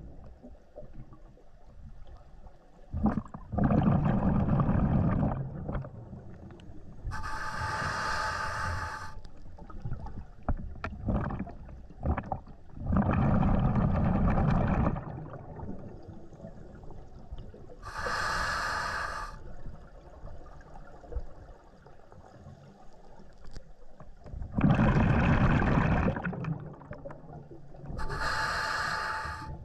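Scuba diver breathing through a regulator underwater, about one breath every ten seconds. Each exhale rumbles out as a burst of bubbles, and a few seconds later the demand valve hisses on the inhale; this happens three times. The exhaled bubbles are the loudest part.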